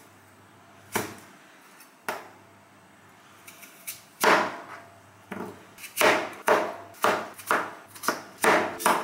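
Kitchen knife slicing through raw sweet potato and striking the cutting board. There are a few single cuts at first, then a steady run of about two cuts a second in the second half.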